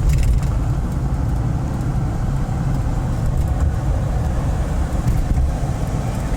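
Steady low rumble of engine and road noise from a vehicle on the move.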